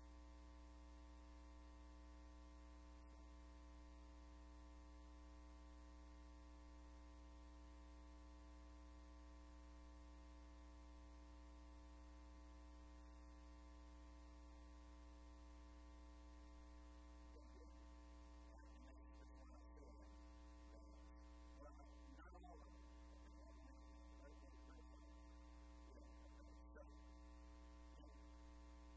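Near silence: a steady electrical mains hum from the audio system, with faint indistinct wavering sounds in the second half.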